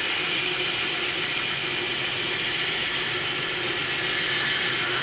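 Woodworking machine running steadily off-picture: an even hiss over a faint low hum.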